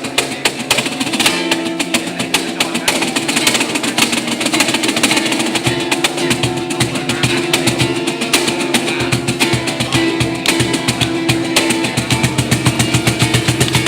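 A band playing music: plucked strings and percussion keeping a dense, fast rhythm under a sustained held note.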